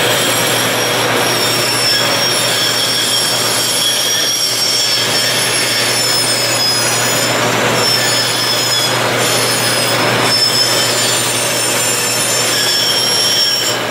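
Delta bandsaw running, its quarter-inch blade cutting a circle in a board as the piece is turned on a pivot-pin jig. A steady motor hum sits under a high, slightly wavering whine from the blade in the cut.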